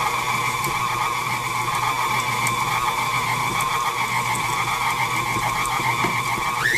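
KitchenAid Ultra Power stand mixer running with a steady motor whine, its flat beater churning stiff, dry dough in a steel bowl. Near the end the whine jumps up in pitch as the motor speeds up.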